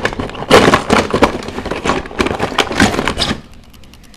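Die-cast toy cars clattering and clicking against each other as a hand rummages through a box of them: a dense run of sharp knocks that stops about three and a half seconds in.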